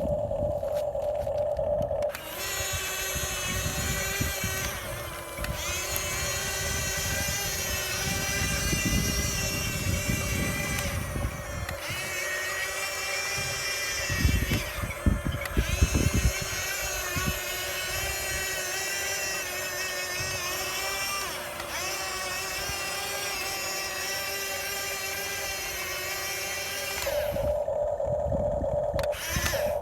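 Radio-controlled model excavator's small electric motor whining, its pitch wavering as the load changes, with a few heavy knocks in the middle.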